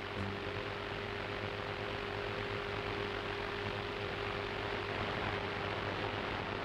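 Steady hiss with a low hum and a faint steady tone underneath, unchanging throughout.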